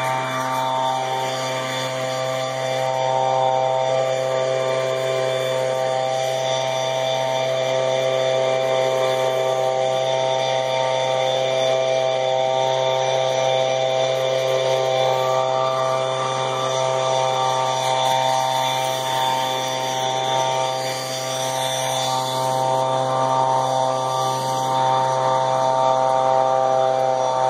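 A motor or engine running at a steady speed: a constant drone with an unchanging pitch.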